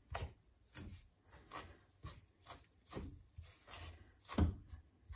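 Kitchen knife chopping parsley on a plastic cutting board: a run of short knocks, about two a second, the loudest a little past four seconds in.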